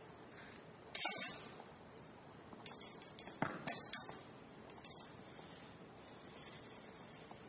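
Rapier blades clashing and scraping in sparring: one sharp ringing clash about a second in, then a quick run of lighter clinks and clashes between about three and five seconds in.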